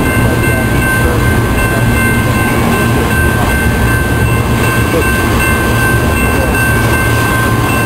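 Intermodal freight train's cars rolling past, a steady rumble of wheels on rail with a steady high whine held over it.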